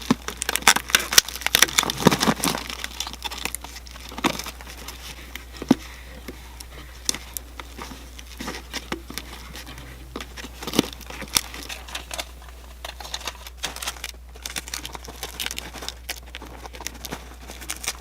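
Aluminium foil tape being torn off and pressed around a flexible duct joint, with irregular crinkling and crackling, busiest in the first few seconds.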